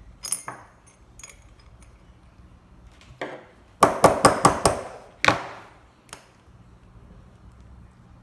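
A few light metal clicks, then a quick run of about six sharp metal taps about four seconds in and one more a moment later: steel pliers knocking against a key head clamped in a metal jig.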